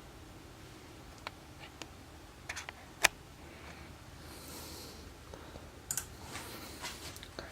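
Scattered key presses on an Aukey mechanical keyboard with clicky blue switches, a few sharp clicks at uneven intervals with the loudest about three seconds in, not continuous typing.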